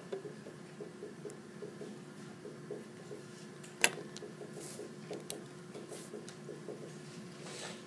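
Quiet classroom with a steady hum and faint, irregular tapping and scratching of pens on paper as notes are written. One sharp click about four seconds in.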